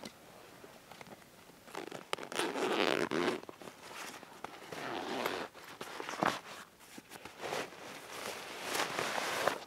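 Zipper on the top lid pocket of a Savotta Jääkäri XL backpack being pulled open in several rasping strokes, each about a second long, with fabric rustling and a few sharp clicks between them as the pocket is opened and rummaged.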